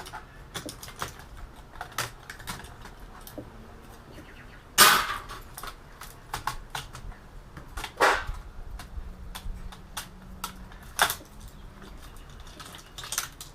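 Clicks and clatter of metal and plastic computer parts being handled and pulled apart during teardown, with three louder knocks about five, eight and eleven seconds in.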